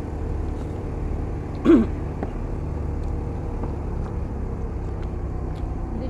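Steady low engine rumble in the background, like idling or passing motor vehicles. About two seconds in comes one short, loud sound from a person's voice.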